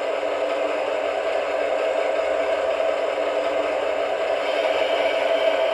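ESU LokSound XL V4.0 sound decoder in a Piko G scale BR-199 model playing a steady diesel locomotive running sound through the model's small onboard speaker, with the locomotive standing still.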